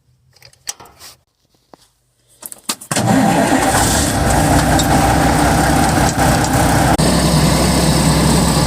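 A big forklift's engine starts about three seconds in, after a few faint clicks, and catches at once. It then runs steadily at idle.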